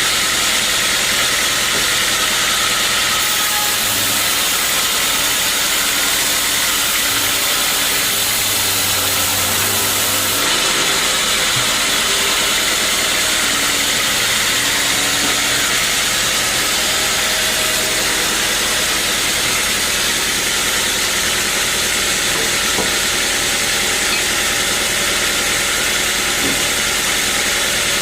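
Sawmill machinery running steadily: a constant loud engine drone under an even hiss.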